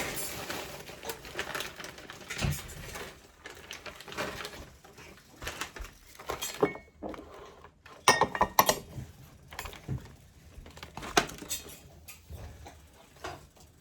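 Frozen mixed vegetables being tipped into a skillet of chicken and sauce, with irregular pattering, clinks and scrapes of a utensil against the pan, loudest in a cluster about eight seconds in.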